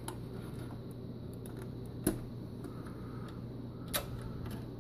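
Two sharp clicks about two seconds apart, with a few fainter ticks, over a steady low hum.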